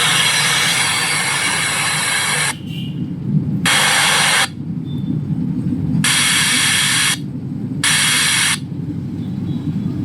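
Intex home theater speakers putting out loud static hiss, the sign that the amplifier, with its faulty ICs replaced, is producing sound again. The hiss cuts off about two and a half seconds in, then returns in three short stretches, over a steady low rumble.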